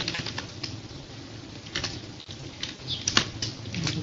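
Computer keyboard keys clicking irregularly as code is typed, over a low steady hum.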